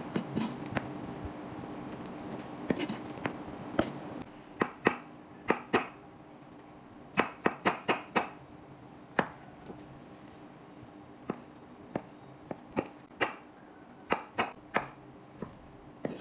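Kitchen knife slicing peeled bananas on a wooden cutting board: irregular sharp taps of the blade striking the board, sometimes in quick runs of three or four.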